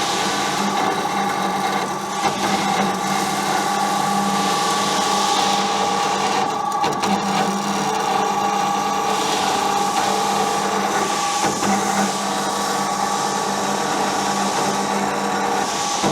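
Hyd-Mech S-23 horizontal band saw running steadily, its blade cutting through metal stock: a steady whine over a hum, with no change in pitch.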